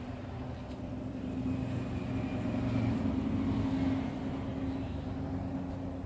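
A low, steady mechanical hum that swells over the first few seconds and then eases off.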